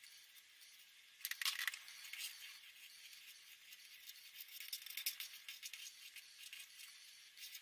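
Felt-tip marker scratching on paper in many short strokes, starting about a second in.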